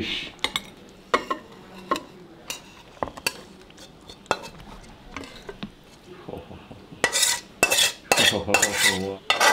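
Metal spatula tapping and scraping against a metal wok-style pan as fish curry is served out into a bowl. Scattered light clinks run through most of it, then about seven seconds in comes a run of louder scrapes as the pan is tipped and scraped clean.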